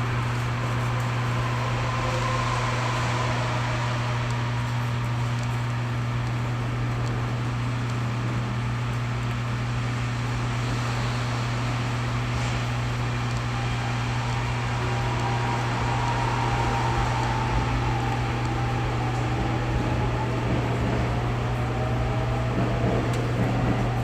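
Keio 8000-series electric train running, heard from inside the car: a steady low hum and wheel-on-rail noise. A faint motor whine drifts slightly in pitch in the second half.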